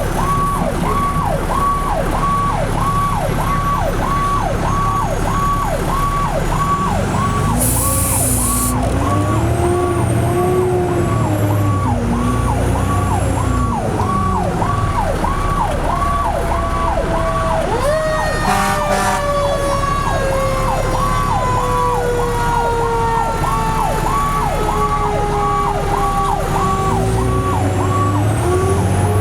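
Fire truck sirens heard from the responding truck: an electronic siren pulsing in a fast yelp about twice a second throughout, with a second siren rising and falling in the middle and then winding down in a long, slow falling tone from about two-thirds of the way in, over the steady low drone of the truck's engine.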